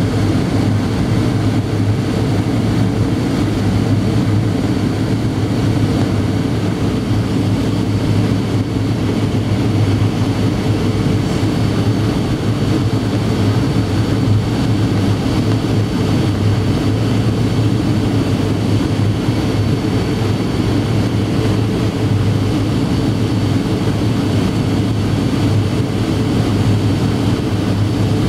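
Steady cabin roar of a Boeing 737-800 in descent, heard inside the cabin at a window seat over the wing: its CFM56-7B turbofan engines and rushing airflow, with a faint steady high whine over a deep hum.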